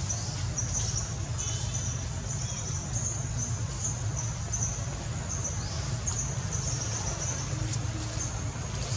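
Insects trilling high and thin, the trill breaking off and starting again every half second or so, over a low steady rumble.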